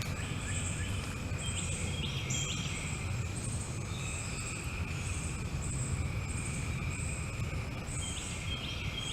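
Outdoor insect chorus: high-pitched pulsing trills about once a second over a steady higher drone, with a steady low rumble beneath.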